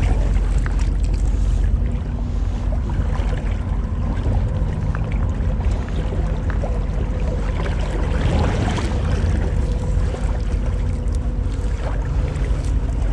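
Wind buffeting the microphone over the steady rush of a shallow creek flowing past.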